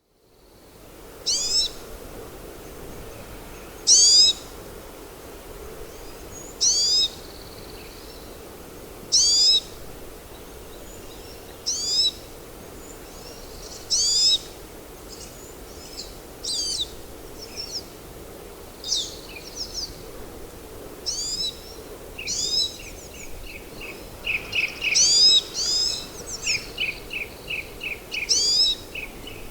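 Pine siskin calling: a short call of quick falling notes, repeated about every two to three seconds. Toward the end it is joined by a fast run of short chattering notes.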